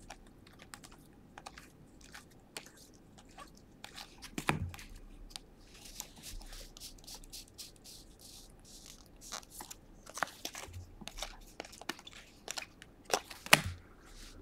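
Bowman Draft baseball cards being flipped and slid through the hands one at a time: faint clicks and scrapes of card stock, with a couple of louder taps about four and a half seconds in and near the end.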